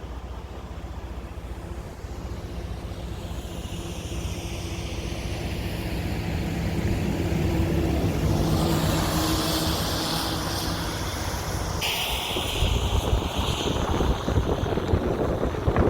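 An engine running with a steady hum, growing louder over the first eight seconds or so. A hiss swells and sweeps in pitch through the second half.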